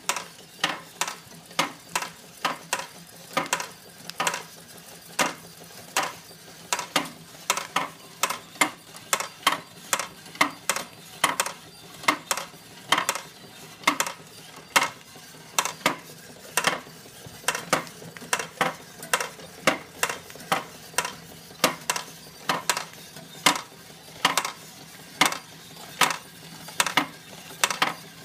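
Tin-plate models driven by belts from a toy live-steam engine, clinking and clicking metallically at about two strokes a second, slightly uneven, over a faint steady hum of the running engine.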